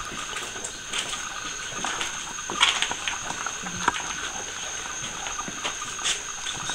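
Irregular light crackling and tapping, a few sharper taps among them: a dragonfly fluttering against surfaces, a sound first taken for footsteps in dry leaves.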